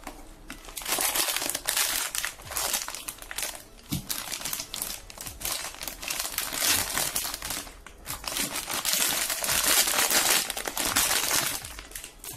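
Clear plastic bag crinkling and rustling in irregular swells as a small step-down transformer is unwrapped by hand.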